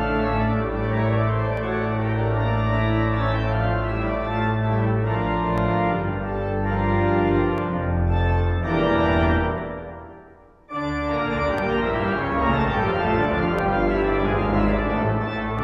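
Organ playing sustained chords over low bass notes. About ten seconds in the sound fades away almost to nothing, then comes straight back in at full strength.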